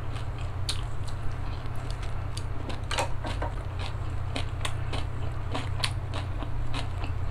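Close-miked chewing and biting into stir-fried mala shrimp and vegetables: many small irregular crunches and wet mouth clicks, over a steady low hum.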